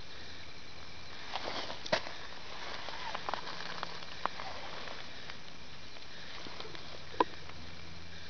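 Handling noise close to the microphone: scattered rustles and short clicks from a hand moving through wet grass and mud, with the loudest knock about two seconds in and a single sharp click near the end. Under it runs a steady faint hiss with thin high steady tones.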